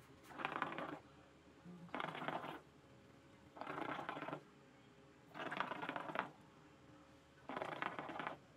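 Hookah water bubbling in short, gurgling bursts as the smoker draws through the hose: five pulls, each under a second, about two seconds apart.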